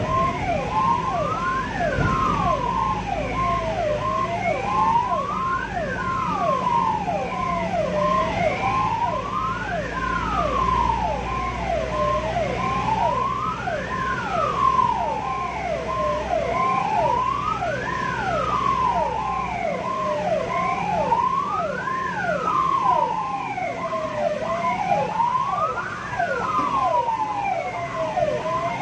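Ambulance siren sounding continuously: a slow wail rising and falling about every four seconds, layered with quick falling chirps and a pulsing steady tone, over the vehicle's low road rumble.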